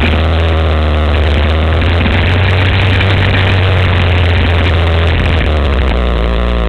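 Motor trike's engine running at a steady pace while on the move, with air rushing over the microphone.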